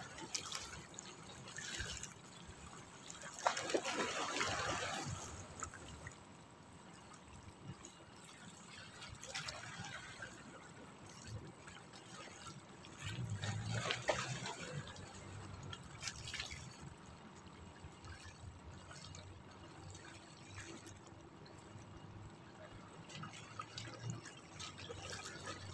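Sea water lapping and splashing around shoreline rocks in the shallows, with louder splashes about four seconds in and again around thirteen to fourteen seconds in.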